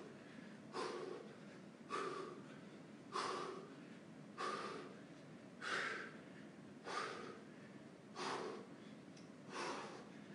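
A man breathing hard during shadowboxing, one short, sharp breath about every second and a quarter, eight or nine in a row.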